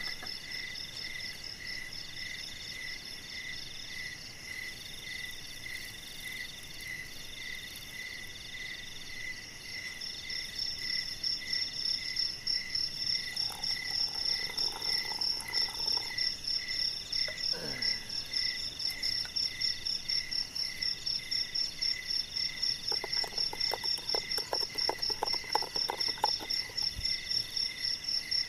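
A night chorus of crickets and other insects calling in steady pulsed trills at several pitches. The highest trill grows louder about a third of the way in. Near the end there is a short run of rapid clicks.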